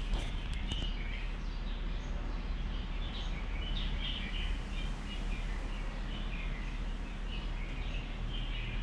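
Birds chirping on and off over a steady low background noise, with a few light clicks in the first second.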